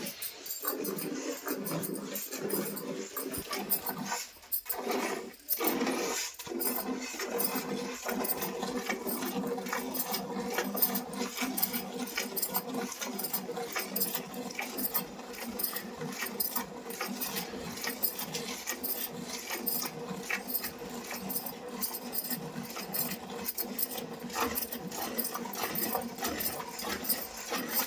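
A cow being milked by hand: quick, rhythmic squirts of milk striking a pail, one after another.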